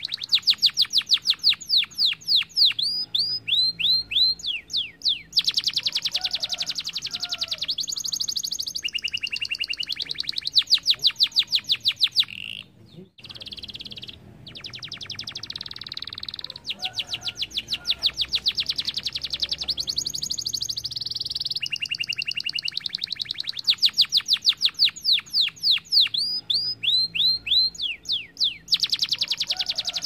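Domestic canary singing continuously in fast trills and rolls of rapidly repeated high notes, with quick falling slurs. The song breaks off briefly about 13 seconds in.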